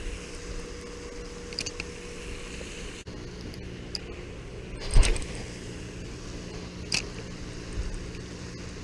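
Handling noise from a casting rod and reel as a lure is worked in: a few sharp knocks and clicks, the loudest about five seconds in, over a steady low hum.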